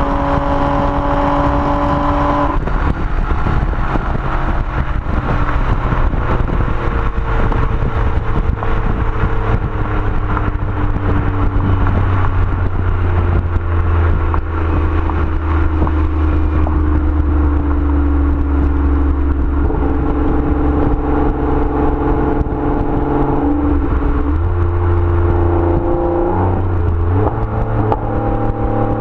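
Nissan Maxima's 3.5-litre V6 engine and exhaust during a drive. It is held at high revs until about two seconds in, then the throttle closes and the engine note sinks slowly over the next several seconds under a deep, steady drone. The note shifts again briefly near the end.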